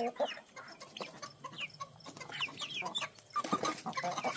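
Chickens clucking and giving many short, high, downward-sliding chirps as they feed on superworms.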